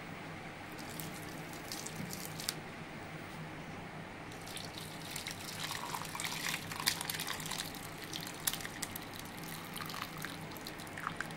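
Whey and soft chhena curds poured from a kadhai into a muslin-lined strainer. The liquid splashes and trickles through the cloth, heaviest about halfway through.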